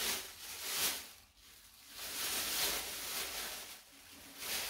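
Clear plastic bag crinkling in several bursts as it is pulled off a boxed statue base.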